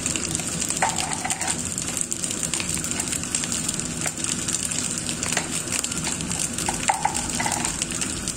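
Fried rice sizzling and crackling in a hot wok. A metal spatula scrapes against the wok twice, about a second in and near the end.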